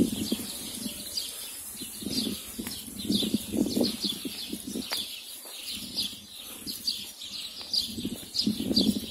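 Small birds chirping over and over in the trees, short quick falling notes. Footsteps scuff irregularly on a dry dirt path.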